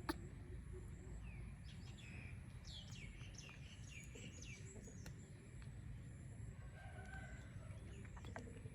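A run of about a dozen quick, high-pitched chirps between about one and four and a half seconds in, with a fainter call near the end, over a low steady background hum.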